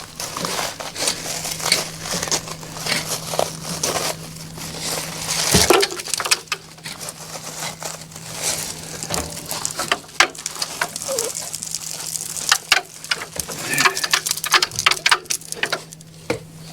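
A string of irregular knocks, scrapes and crackles, like materials being handled, over a faint steady low hum.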